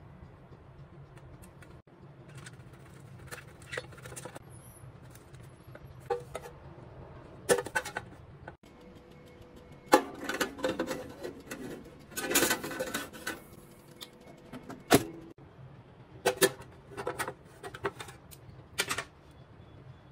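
Stainless steel baking tin handled and set into an oven: scattered metallic knocks and clinks, with a busier stretch of clattering about ten to thirteen seconds in, over a low steady hum.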